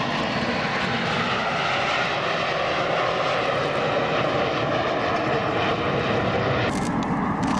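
A close formation of four Kawasaki T-4 jet trainers flying past, their twin turbofan engines giving a steady jet noise with a faint whine. The high hiss drops off sharply near the end.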